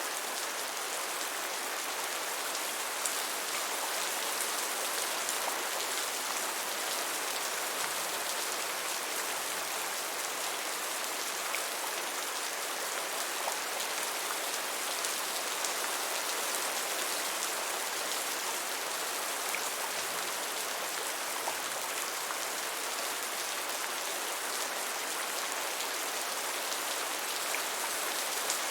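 Steady, gentle rainfall: an even hiss of rain with occasional faint individual drop ticks.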